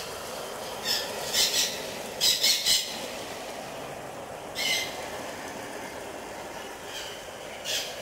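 Fine water spray from a hose or watering nozzle falling on large plant leaves: a steady hiss, with several short louder bursts of hiss, most of them between one and three seconds in.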